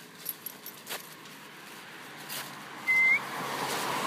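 Dry fallen leaves rustling and crackling as a puppy noses and steps through them, then a passing car's noise swelling toward the end. A short, high chirp, rising slightly at its end, about three seconds in is the loudest sound.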